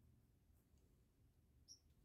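Near silence: faint room tone, with one short, high chirp near the end.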